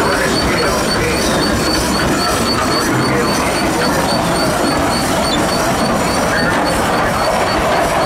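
Minneapolis steam traction engine rolling slowly past close by: steady mechanical running of the engine, gearing and steel wheels, with a light tick about three times a second.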